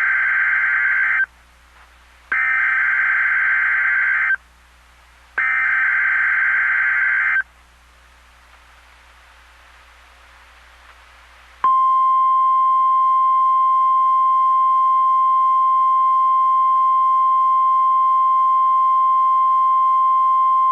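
NOAA Weather Radio Emergency Alert System activation. It opens with bursts of shrill digital SAME header data tones, one ending right at the start and two more of about two seconds each, a second apart. After a few seconds of faint hiss, the steady single-pitch 1050 Hz warning alarm tone comes in about halfway through and holds, signalling that an emergency alert is about to be read.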